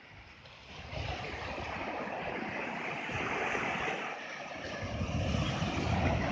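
Sea surf breaking and foaming up a sandy beach, a steady wash of noise that swells about a second in and grows louder toward the end.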